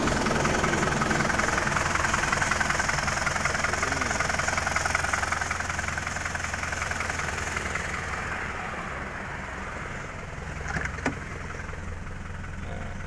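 Isuzu Panther's 2.5-litre four-cylinder diesel idling with a steady clatter, which the seller judges healthy with no blow-by. It grows quieter after about eight seconds. A couple of short clicks come near the end.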